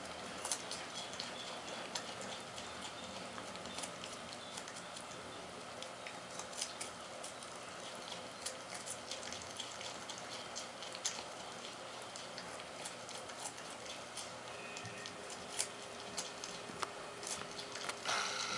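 Juvenile North American porcupine chewing pieces of carrot: a run of small, irregular crunching clicks, several a second. About a second before the end a louder, steady noise starts.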